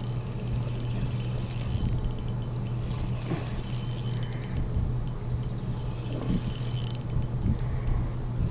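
Steady low motor hum with scattered light ticks and clicks over it.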